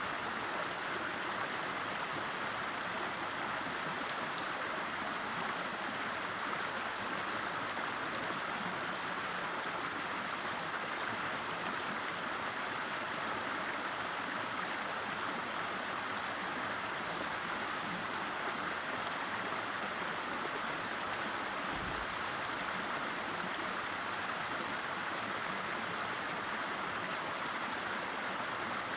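River water rushing and burbling over rocks, a steady even flow.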